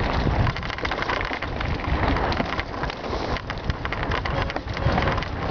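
Mountain bike tyres rolling over a loose, stony desert trail: a dense, continuous crackle of gravel and small knocks, with a rough low rumble underneath.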